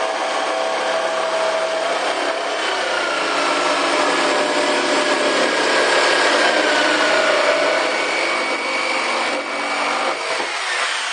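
Power tool cutting, running continuously with its pitch wandering as it works, then stopping about ten and a half seconds in.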